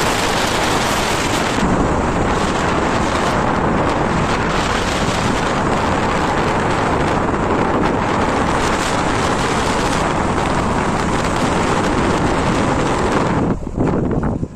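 Heavy wind buffeting the microphone of a phone carried on a moving motorbike, a dense steady rush with road and engine noise beneath it; it eases for a moment near the end.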